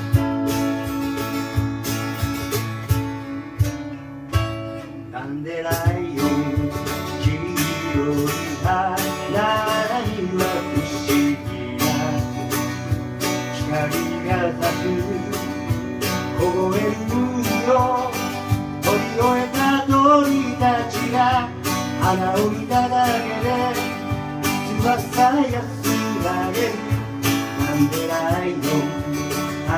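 Live acoustic band: two acoustic guitars strumming, with singing coming in about six seconds in, and a cajon keeping the beat.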